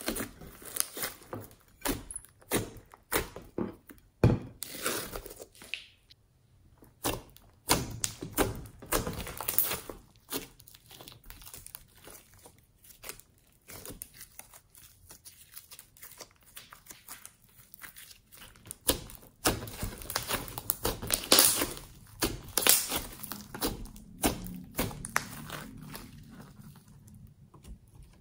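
Fluffy slime studded with small beads being squeezed, folded and stretched by hand: irregular sticky squishes, pops and crackles in uneven runs with short pauses, busiest a little past the middle.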